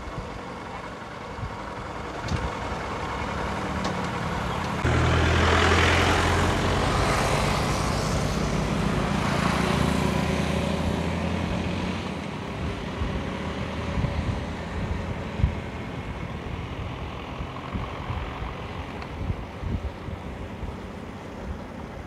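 Road and wind noise while riding a motorcycle. About five seconds in, a motor vehicle's engine swells suddenly, stays loud for several seconds, then fades.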